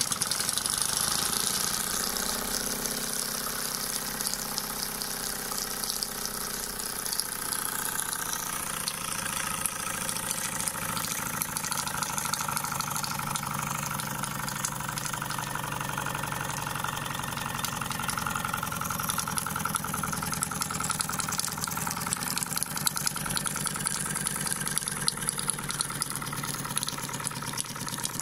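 Scratch-built double-acting model steam engine running steadily, a rapid, even beat from its piston and valve gear.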